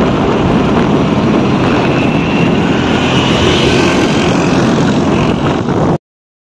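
Steady, loud rush of wind buffeting the microphone, mixed with engine and road noise from a moving vehicle. It cuts off abruptly to silence near the end.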